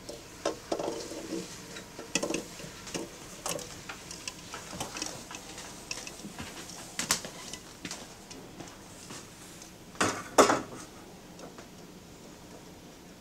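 Kitchen clatter: eggs set into an enamelled saucepan of water with a brief ringing of the pan, then a string of light knocks and clinks of dishes and utensils. Two louder knocks come close together about ten seconds in.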